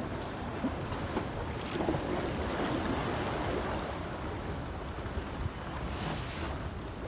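Rough sea surf washing against a harbour breakwater in high waves, with wind rumbling on the microphone; the surge swells a couple of seconds in.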